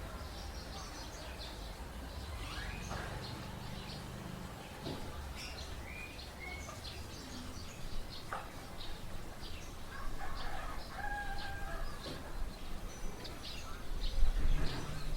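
Morning neighbourhood ambience: small birds chirping throughout, and a rooster crowing about ten seconds in, over a steady low background rumble.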